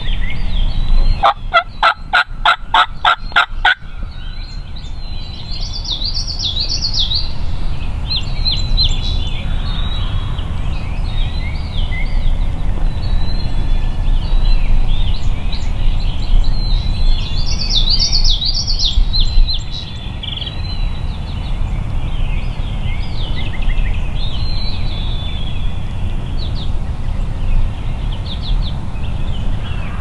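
A loud series of about nine raspy turkey yelps, about three a second, starting about a second in. After them songbirds chirp and sing over a steady low rumble.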